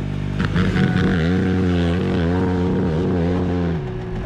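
Dirt bike engine running at high revs, its pitch wavering up and down, then dropping away near the end.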